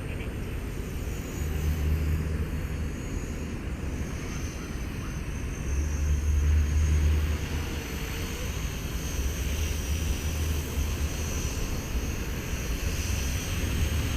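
Small electric RC helicopter (Blade 230 S) hovering close by, its motor and rotor blades giving a steady high whine over a low rumble of rotor wash that swells twice.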